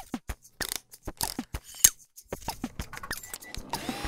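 Motion-graphics intro sound effects: an irregular run of sharp clicks and short blips that drop quickly in pitch, thickening into a brief hissy rush near the end.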